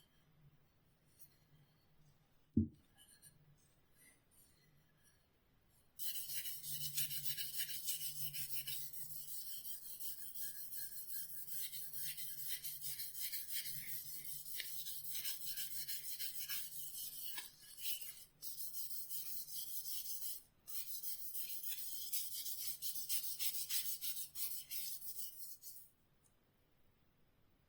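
A single knock, then steady abrasive rubbing by hand on a workpiece, a dry scratchy hiss lasting about twenty seconds with two brief pauses.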